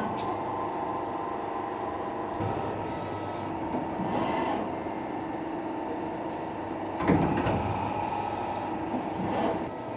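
Upstroke press brake running with a steady hum. Several short whirring moves come and go over it, and there is one sharp knock about seven seconds in.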